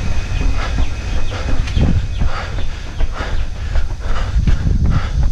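A runner's footsteps slapping a concrete path in a steady rhythm, with hard breathing. Heavy low rumble of wind and jolting on a body-worn camera's microphone.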